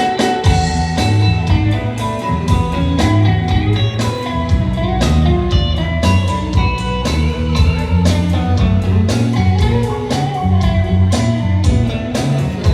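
Instrumental break of a country-pop song: lead guitar over bass and a steady drum beat, with no singing.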